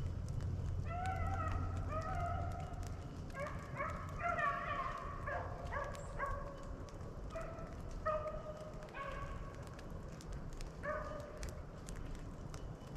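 Beagles baying on a swamp rabbit's trail: a string of drawn-out, pitched howls, with more than one dog's voice overlapping about four seconds in.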